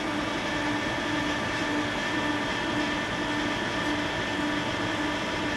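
Steady industrial drone of running shop machinery and ventilation, with a low hum that pulses about twice a second and a faint steady whine above it.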